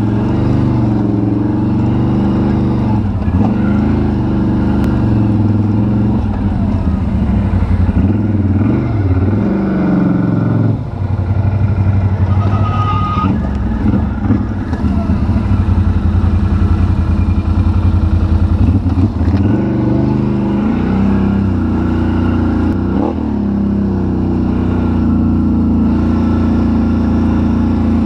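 ATV engine running while riding a rough trail, its pitch rising and falling as the throttle changes.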